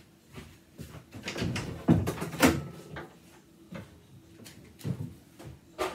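Wooden wardrobe door being opened, with a series of knocks and clatter as things are handled inside, loudest about two seconds in.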